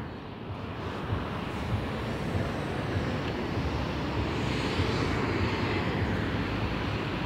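Steady low rumble of city street noise, with no clear single source standing out.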